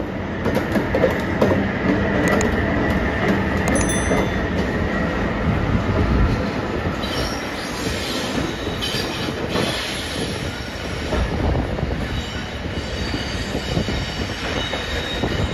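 Freight train passing at speed, a diesel locomotive followed by flat wagons, with a continuous rumble and clatter of wheels over the rails. From about halfway through, thin high-pitched wheel squeal rides over the rumble.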